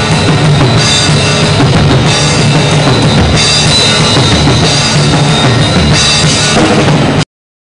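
Drum kit played hard in a live heavy metal performance: drums pounding with cymbals crashing over them, loud and continuous. The sound cuts off abruptly about seven seconds in.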